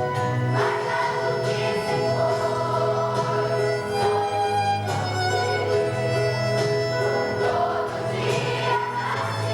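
A choir singing a song with instrumental accompaniment, sustained notes held over a steady bass.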